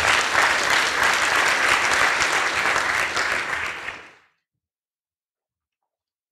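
Lecture-hall audience applauding, a dense patter of many hands clapping that stops fairly suddenly about four seconds in.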